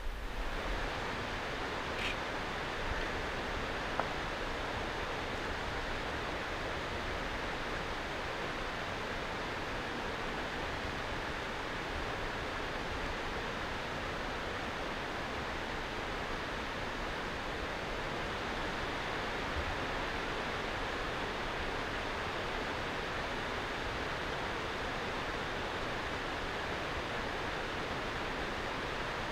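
Steady, even rushing outdoor ambience, with a faint click about two seconds in and another about four seconds in.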